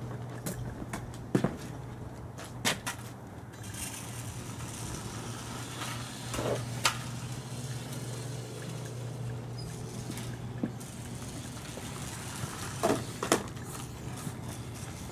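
A steady low hum with a handful of short, sharp knocks and taps scattered through it, from footsteps and a small 1/28-scale Team Associated SC28 electric RC truck being driven on a concrete driveway.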